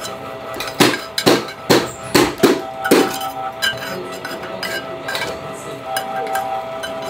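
Metal kitchen utensils clinking and knocking on stainless steel: about six sharp strikes, roughly half a second apart, in the first half, then a few fainter ticks, over a steady faint hum.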